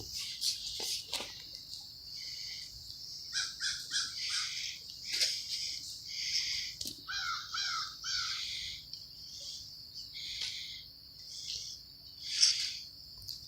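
Birds calling outdoors in many short repeated notes, some in quick runs of two or three, over a steady high drone of insects.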